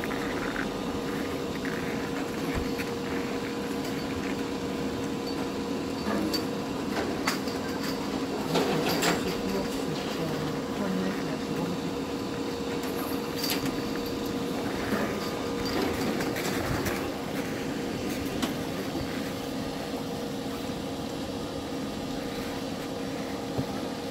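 Steady mechanical drone of a running motor, even in level, with a few faint voices and clicks over it.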